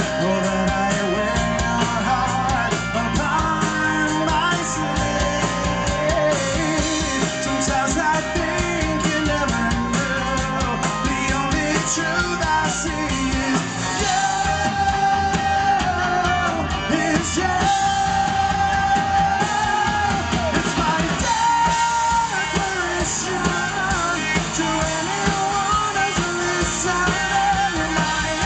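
Live rock band with a male singer, the song running on loudly. There are long held notes about halfway through.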